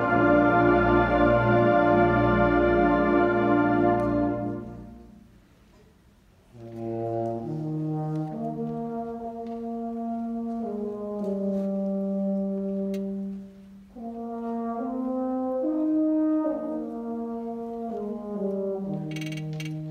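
Concert band playing a slow piece: a loud full chord held and then released about four seconds in, ringing away in the hall to a brief silence. Then a softer chorale of long sustained chords in a few voices, pausing once briefly before going on.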